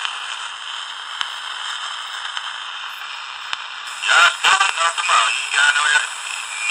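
Static hiss from the speaker of a Danita 86 six-channel radio transceiver. About four seconds in, a distorted voice transmission breaks through the static; the uploader thinks it may be a Russian signal.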